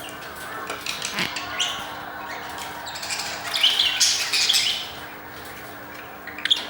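Budgerigars chirping and chattering in short, irregular high chirps, with a louder run of rapid chirps about three to five seconds in.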